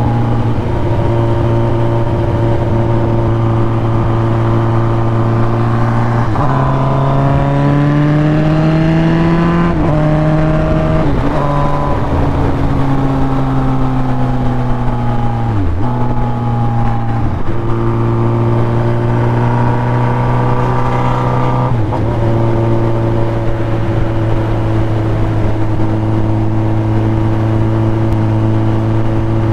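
Sport motorcycle's inline-four engine heard from the rider's helmet microphone while riding, holding a steady note most of the time. Its pitch climbs between about six and ten seconds in, sinks slowly for a few seconds after that, and dips briefly several times as the throttle and gears change.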